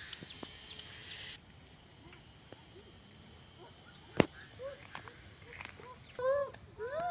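Steady high-pitched insect chorus, dropping in level about a second and a half in. A single sharp click comes about four seconds in, and short rising-and-falling calls begin near the end.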